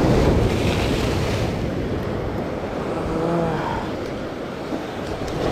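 Sea surf breaking and washing against the concrete blocks of a breakwater, with wind buffeting the microphone; the surge is loudest at the start.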